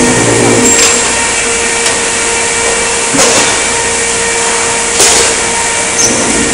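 Sheet-metal shop with a press brake running: a steady machine hum holding one tone, broken by five sharp metallic clanks as sheets are handled and bent.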